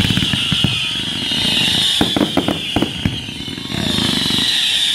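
Aerial fireworks going off: a string of sharp bangs and pops from bursting shells over a loud, high screaming whistle that slowly falls in pitch, breaks off and starts again about four seconds in.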